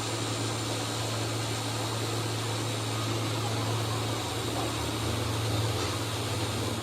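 Workshop machinery running steadily: a continuous low hum with a hiss over it.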